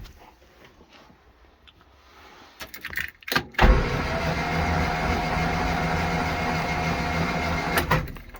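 Morris Minor's A-series four-cylinder engine cranked over on the starter motor with its spark plugs out, for a compression test on cylinder 1. A few clicks come first, then a steady rhythmic cranking for about four seconds that stops suddenly near the end.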